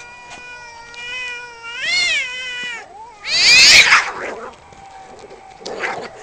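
Two cats caterwauling in a standoff, with long wavering yowls that swell and bend in pitch. About three seconds in, as they lunge at each other and start to fight, comes a loud harsh screech, and a shorter squall follows near the end.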